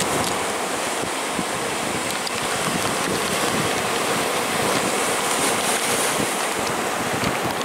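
Atlantic sea surging and foaming over the rocks: a steady rushing wash of breaking surf.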